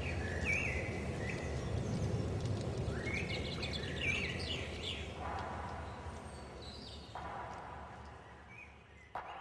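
Outdoor ambience: birds chirping over a steady low background rumble, the whole fading out gradually toward the end.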